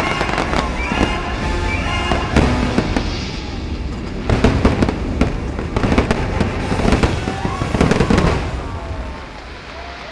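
Fireworks bursting and crackling in rapid volleys over the show's music, thickest from about four to eight seconds in, then thinning out near the end.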